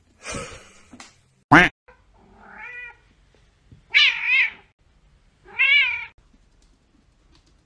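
Cats hissing and crying: a hiss near the start and a short, loud, sharp cry, then a second cat gives two loud, wavering meows about four and five and a half seconds in.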